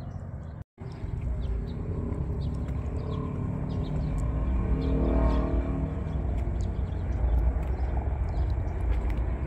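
Outdoor traffic noise: a vehicle passing on the adjacent street, its engine tone swelling and fading about halfway through, over a steady low rumble, with scattered light ticks of footsteps on the path. The sound drops out briefly just under a second in.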